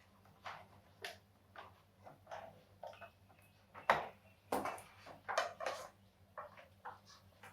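Light clicks and taps of a VGA cable's plug and a small plastic HDMI-to-VGA adapter box being handled, a dozen or so short knocks with the loudest about four seconds in, over a faint steady low hum.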